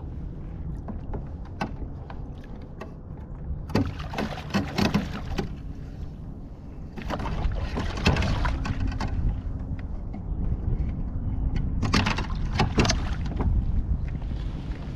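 Splashing water and knocks and rattles against a kayak in three bursts as a large redfish is handled at the side and clipped onto a stringer, over a steady low wind rumble.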